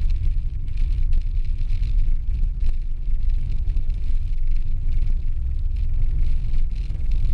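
Car driving on a rough unpaved dirt road, heard from inside the cabin: a steady low rumble of engine and tyres, with scattered small knocks and rattles from the bumpy surface.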